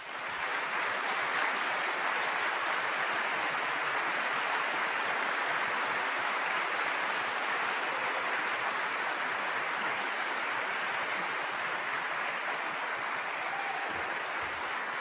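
A large audience applauding steadily in welcome. The clapping swells within the first second and eases slightly near the end.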